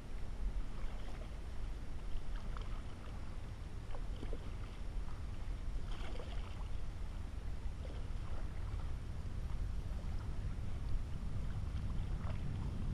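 Kayak paddle blades dipping into lake water, with light splashes and drips every second or two, over a steady low rumble.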